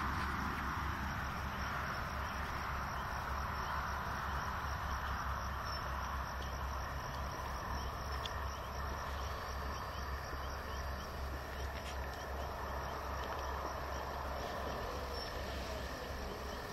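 Diesel locomotive of a departing passenger train running at a distance: a steady low engine hum under an even, higher-pitched hiss.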